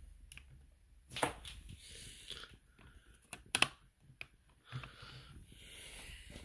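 Faint handling noises from a hand on a small wooden model locomotive and the hand-held camera: a few light clicks and taps, two close together near the middle, over soft rustling.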